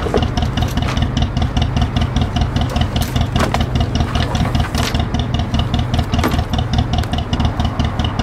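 Engine idling steadily with an even, rapid beat, with a few light clicks over it.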